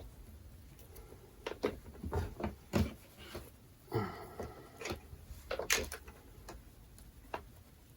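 Irregular clicks and knocks as wires and ring terminals are handled and fitted onto a battery terminal inside a toolbox.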